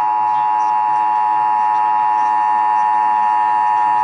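Emergency Alert System attention signal: the two-tone alert, pitched near 1 kHz, sounding loud and unbroken, announcing the North Carolina EAS test.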